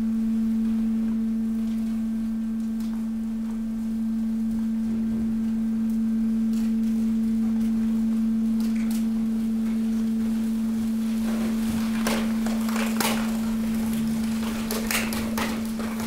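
Hydraulic power unit of a waste compactor running with a steady hum as the ram slides across the hopper floor. In the last few seconds, scattered knocks and clatter of debris.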